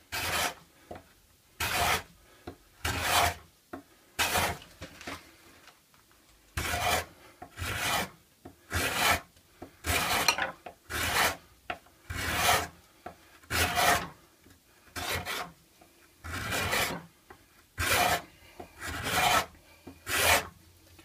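Steel card scraper pushed in strokes across a strip of wood, a rasping scrape about once a second with a short pause about five seconds in. The freshly turned burr takes shavings but does not yet cut smoothly.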